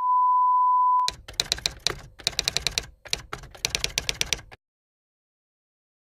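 A steady beep about a second long, then typewriter clacking in quick clusters of keystrokes for about three and a half seconds, stopping abruptly into silence: edited-in sound effects.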